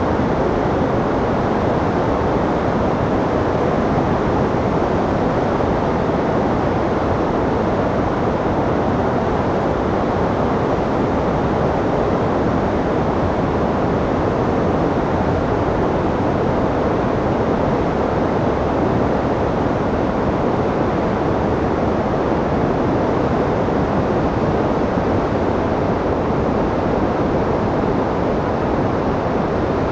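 Whitewater rapids of the Pemigewasset River, swollen with floodwater, rushing over rocks in a steady, loud, unbroken wash.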